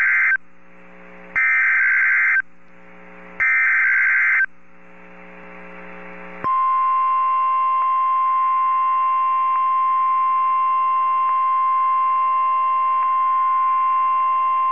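NOAA Weather Radio Emergency Alert System signal: three loud, screechy bursts of SAME digital header data, about a second long and a second apart, the first already under way at the start. After a short stretch of low radio hiss, about six and a half seconds in, the steady single-pitch 1050 Hz warning alarm tone begins. It announces an alert, here a tornado warning.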